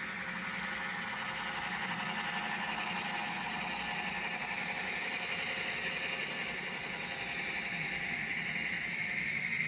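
HO scale model freight train, led by Minneapolis & St. Louis F-unit diesel models, running past: a steady mechanical whir of the locomotive motors and gearing with the wheels rolling on the track.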